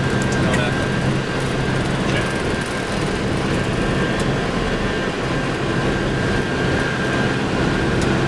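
Steady loud noise on the flight deck of a heavily loaded Boeing 747 during its takeoff and initial climb: engines at takeoff power and rushing air, with a thin steady high whine and a few clicks near the start.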